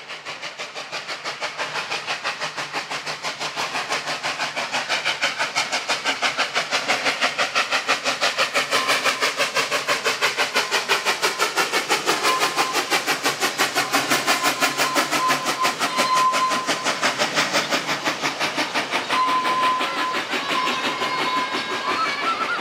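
Ex-South African Railways NG G16 Beyer-Garratt steam locomotive NG129 approaching and passing under steam, its exhaust beating fast and evenly. It grows louder over the first several seconds, then holds as the carriages follow.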